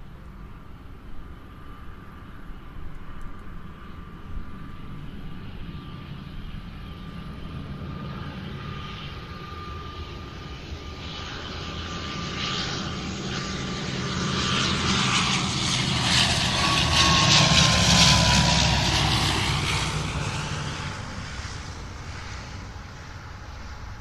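Airliner flying overhead: a broad engine roar swells to its loudest about three-quarters of the way through, then fades away. A whining tone holds steady and then drops in pitch as the aircraft passes.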